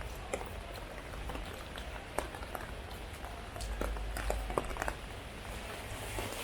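Heavy rain falling, with many single drops landing close by as sharp, irregular taps over a low rumble that swells briefly about halfway through.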